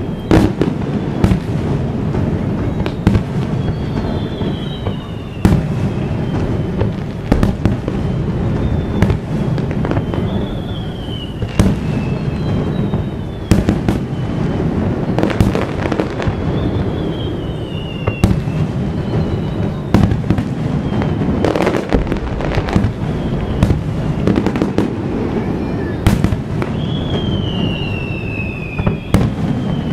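Aerial firework shells bursting one after another, about one bang a second, over a steady low rumble of echoing booms. Several high whistles fall in pitch among the bangs.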